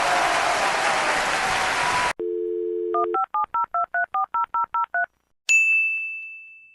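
Telephone dial tone, then about eleven quick touch-tone keypad beeps dialing a number, then a single high ding that rings out and fades. Before this, a steady hiss cuts off suddenly about two seconds in.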